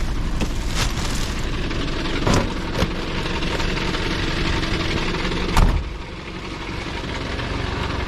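A vehicle engine idling steadily, with a few sharp knocks and thumps over it, the loudest about five and a half seconds in.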